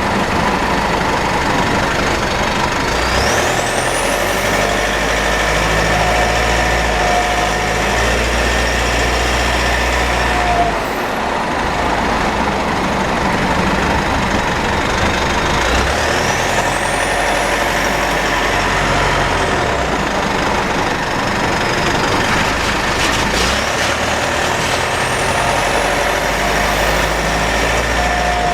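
Mitsubishi 4N15 diesel vehicle running with a high-pitched mechanical whine over the engine and driveline noise; the whine rises in pitch three times and falls once in the middle. The drivetrain is under suspicion: the owner links the whine to an overfilled rear differential, burnt front differential oil and low automatic transmission fluid.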